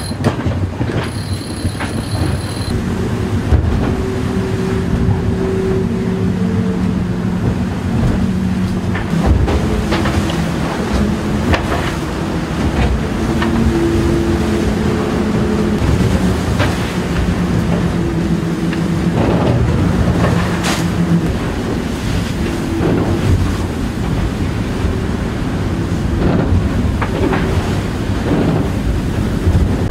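Onboard noise of the maxi trimaran Edmond de Rothschild at sea: steady rushing wind and water over a droning hum from the boat that shifts in pitch every few seconds.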